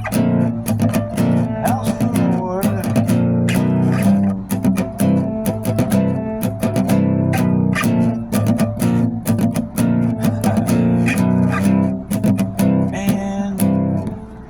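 Band music with a strummed acoustic guitar, played steadily, with a brief dip in loudness near the end.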